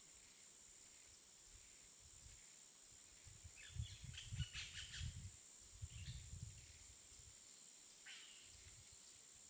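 Very quiet outdoor ambience with a few faint, short bird chirps, and soft low bumps in the middle, under a steady faint high hiss.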